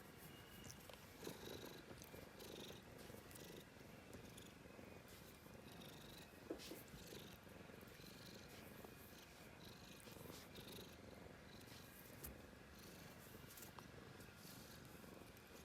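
Domestic cat purring faintly and steadily, with a few small clicks and rustles over it.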